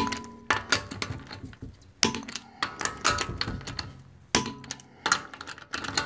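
Click-type torque wrench clicking over at its 90 ft-lb setting on the wheel lugs of a 2012 Audi A4, a series of sharp metallic clicks with lighter ratchet clicks in between, each loud click the sign that a lug has reached torque.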